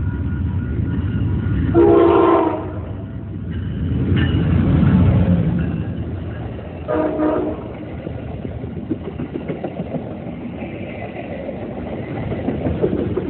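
Amtrak Downeaster diesel passenger train passing close by. It gives two short horn blasts about five seconds apart, with the locomotive rumbling past between them. Then comes the steady clatter of the passenger cars' wheels on the rails.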